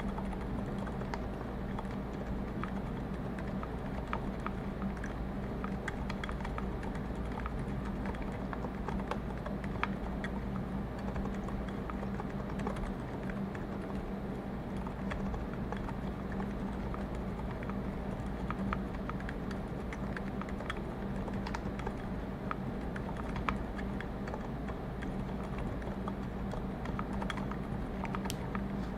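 Continuous typing on a custom mechanical keyboard with Zilents silent tactile switches (lubed, filmed, brass plate, GMK keycaps), giving soft, muted key presses in an irregular patter. A steady low hum and background noise sit underneath, brought up by the raised microphone gain.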